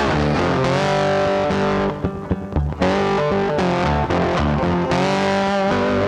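Background rock music led by a distorted electric guitar, which briefly thins out about two seconds in.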